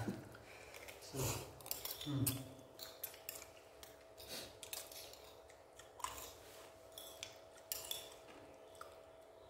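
Metal fork and spoon clinking and scraping against a plate of instant noodles in short, irregular clicks as the noodles are scooped up.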